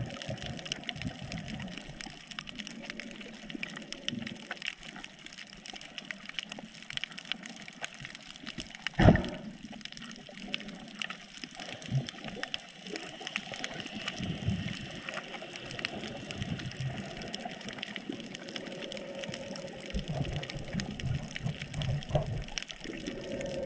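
Water sloshing and bubbling around a snorkeler's GoPro, with crackling clicks throughout and one sharp knock about nine seconds in.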